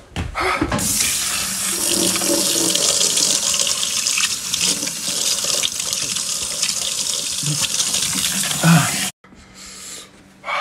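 Water running from a tap into a sink: a steady rush lasting about eight seconds that cuts off suddenly.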